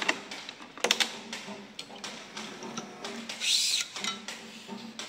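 Badminton string (Gosen Ryzonic 65) being woven through a racket's string bed during restringing: small clicks and ticks of string against string, a sharp click about a second in, and a brief swishing zip about three and a half seconds in as the string is drawn through.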